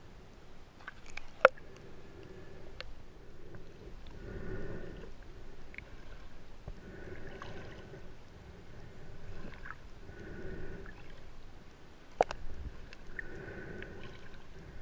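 Muffled underwater sound picked up by a camera held below the surface: a rushing swell of water noise about every three seconds, with two sharp clicks, one near the start and one near the end.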